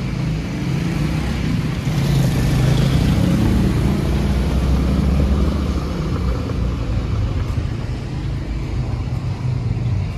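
A motor vehicle's engine running close by in street traffic, its low hum swelling about a second in and easing off after about six seconds.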